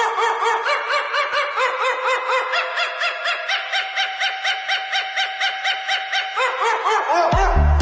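Small dog yapping in a rapid, even run of high barks, about four a second.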